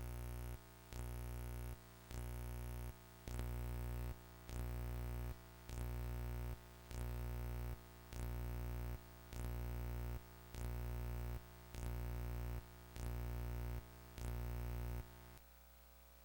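Synthesizer music: a held chord pulses on and off about once a second, then stops a little before the end.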